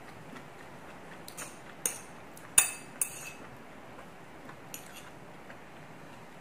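Metal chopsticks clinking against a ceramic plate: several sharp clinks between about one and three seconds in, the loudest in the middle with a short ring, then one light tap later.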